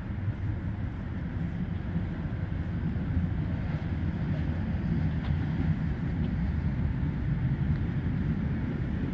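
Steady low rumble with an even hiss above it: wind buffeting the microphone mixed with distant city traffic.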